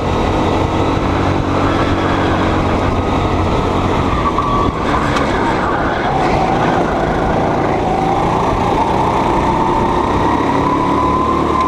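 Go-kart engine running at speed, heard from the driver's seat. Its pitch sags a little around the middle and then climbs steadily as the kart accelerates.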